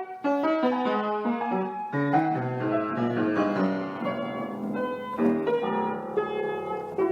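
Piano being played: a flowing run of notes, several sounding together, with no break.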